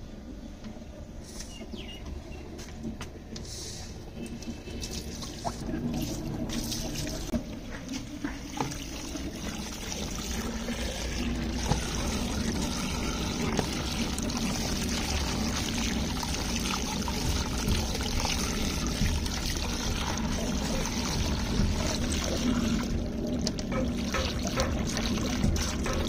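Water pouring from a hose into a plastic tub of water while hands splash and turn long white radishes (mooli) to wash them. The running water grows louder after the first several seconds and then holds steady.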